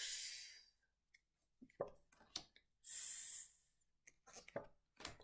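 A woman's voice making the isolated letter sounds 'fff' and then, about three seconds in, a higher 'sss'. Each is a brief hiss of about half a second, with a few faint clicks between them.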